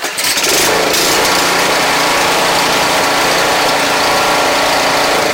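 MTD 24-inch snowblower's single-cylinder engine starting at once and running steadily.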